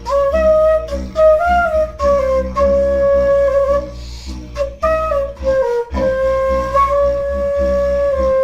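Instrumental music: a wind-instrument melody of held notes with a few slides in pitch, over a steady low bass and a busy accompaniment.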